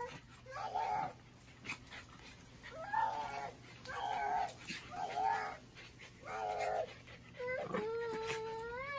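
Shiba Inu whining: a run of short, high, whiny cries about once a second, then one longer drawn-out whine that rises at the end.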